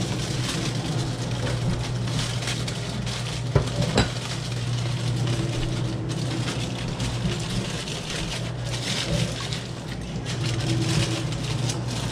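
Aluminium foil crinkling and crackling as it is folded and crimped by hand into a packet around a fish, with two short knocks about three and a half and four seconds in. A steady low hum runs underneath.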